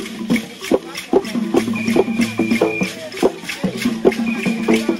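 Dagara funeral music: rapid struck wooden notes of a gyil (xylophone) with the shaking of rattles keeping a fast rhythm. A high held tone sounds twice, each about a second long.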